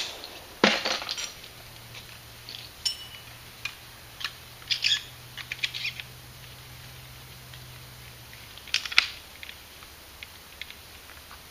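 Shotgun being reloaded between shots: sharp metallic clacks of the action and small clinks of shells being handled. The loudest clacks come about a second in and again about nine seconds in.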